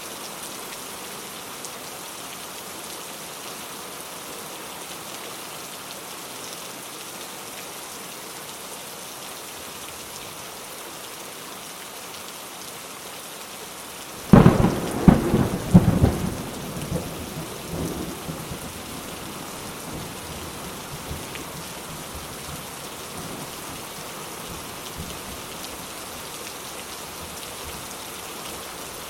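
Steady rain falling, with a sudden close thunderclap about halfway through that cracks and then rumbles away over several seconds.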